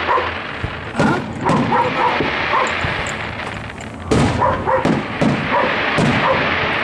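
Firework shells bursting overhead with several sharp bangs, while a dog barks repeatedly in short yelps between them.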